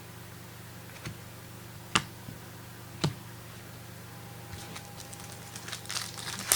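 Three sharp taps about a second apart, then the crinkling of a foil trading-card pack wrapper being opened, growing louder near the end.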